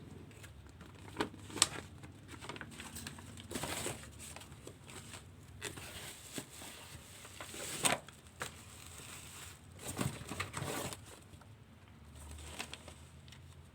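Handling noises while unpacking: irregular rustling and crinkling of packaging, with scattered sharp clicks and knocks, the loudest about a second and a half in, near the eight-second mark and again around ten seconds.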